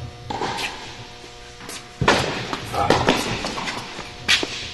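Tennis ball struck back and forth with rackets in an indoor rally: several sharp hits, the loudest about two seconds in and another near the end, over background music.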